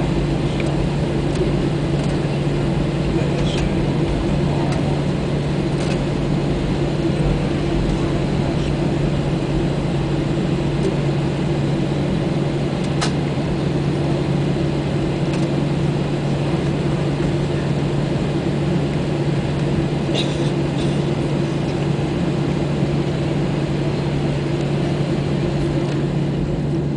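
Cabin noise of an Airbus A320 taxiing, heard from a window seat: its engines give a steady, even drone, with a few faint ticks.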